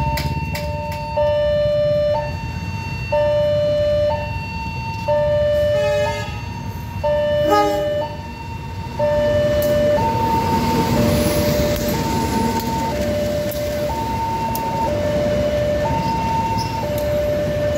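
Railway level-crossing warning alarm sounding its two alternating tones, high then low, each about a second long. A diesel-hauled passenger train passes over the crossing, and the noise of its wheels on the rails swells from about nine seconds in.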